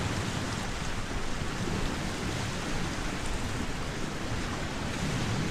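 Steady rushing background noise, even and unbroken, with no distinct events in it.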